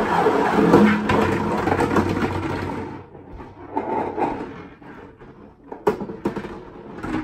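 Small balls rolling and rattling inside a large clear plastic water-cooler jug as it is spun, loud for about three seconds and then quieter. A couple of sharp knocks about six seconds in as a ball is tipped out.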